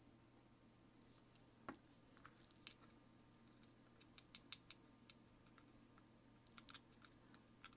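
Near silence with faint scattered clicks and light taps from hands handling a small paintbrush at the work mat, coming in two brief clusters, one about a second in and one near the end.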